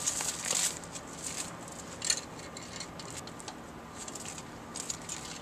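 Light steel chain clinking and rattling in scattered short clinks as it is handled and routed up over a car's front suspension A-frame, busiest in the first two seconds with a few more near the end.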